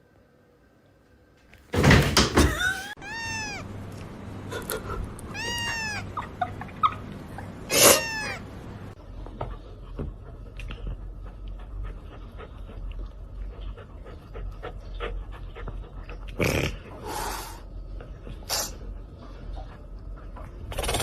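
A cat meowing several times in the first half, each meow rising and then falling in pitch. Short, loud, noisy bursts come in between, one near the start and another late on.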